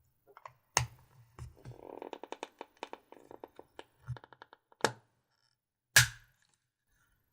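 Close-up handling of the GoPro's packaging: a sharp click or snap about a second in, a quick run of light taps, about eight to ten a second, over the next few seconds, then two more sharp clicks near five and six seconds.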